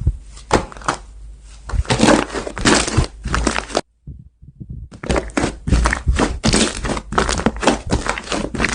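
Slime being squeezed and poked by hand, making a fast run of crackling clicks and pops, with a break of about a second partway through.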